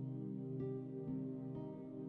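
Soft new-age background music: sustained synth chords, with a few gentle new notes entering about every half second.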